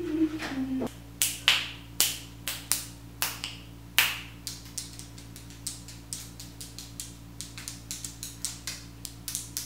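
A woman hums briefly, then snaps her fingers over and over in an uneven rhythm. The snaps are loudest at first and become quicker and softer in the second half. A steady low hum runs underneath.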